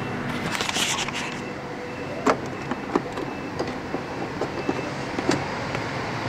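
Hard plastic cabinet of a Sharp GF-787 radio cassette player being handled while it is taken apart: a short scraping rustle about a second in, then a few separate sharp clicks and knocks.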